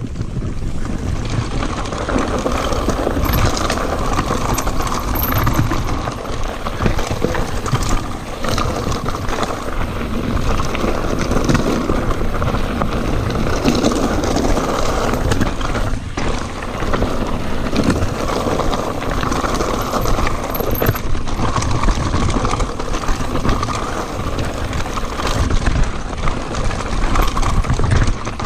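Mountain bike riding fast down a rough dirt and gravel trail: continuous tyre and rattling noise, with frequent knocks as the bike goes over stones.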